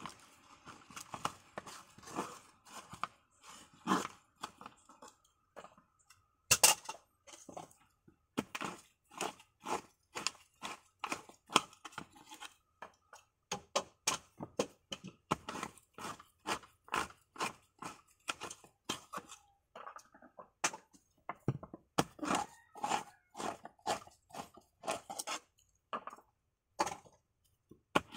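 Coconut meat being pried out of the shell with a hand tool for copra, as repeated crunching strokes. They come scattered at first, with a sharp knock about six seconds in, then settle into a steady run of about two a second.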